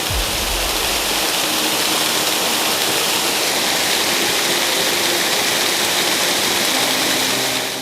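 Steady rushing of a waterfall at close range, an even noise without pauses, which fades out just before the end.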